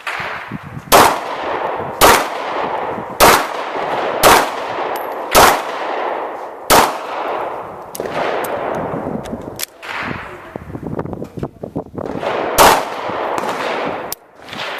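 Pistol shots fired one after another, roughly one a second for the first several seconds, each sharp crack trailing off in a ringing echo. Several quieter shots follow in the second half, with one more loud shot near the end.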